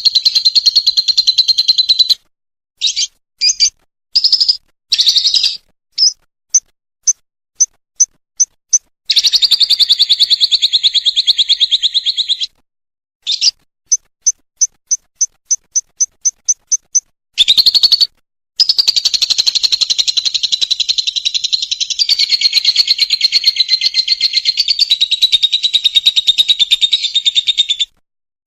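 Lovebird ngekek song: long, fast rattling trills of high chirps lasting several seconds each, alternating with runs of separate sharp chirps that speed up. The longest trill comes in the second half.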